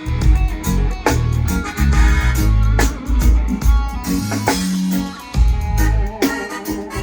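Live band music played at a sound check: guitar over a heavy bass line, with a strong beat hit about every second and a half to two seconds.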